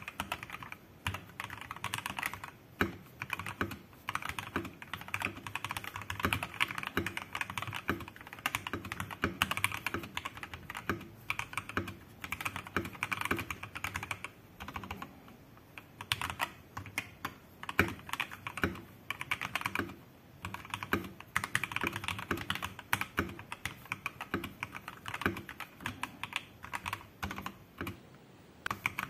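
Typing on a modded Royal Kludge RK84 mechanical keyboard: lubed and filmed Durock EV-01 tactile switches, PBT keycaps, lubed plate-mounted stabilizers and a foam-and-tape mod. Fast, continuous keystrokes with a couple of brief pauses.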